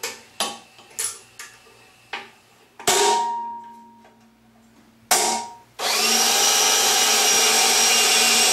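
Several light metallic clicks, then two hammer blows on metal about two seconds apart, each ringing briefly. About six seconds in, a DeWalt cordless drill starts on the fixture's aluminium housing and runs steadily.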